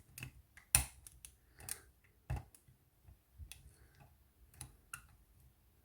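Lock pick and tension tool working the wafers of a cabinet wafer lock: a few separate small metallic clicks at uneven intervals, the sharpest about a second in.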